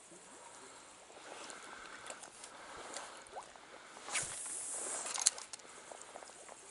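Stream water sloshing and swishing close by as an angler moves in the current, louder between about four and five seconds in, ending in one sharp click.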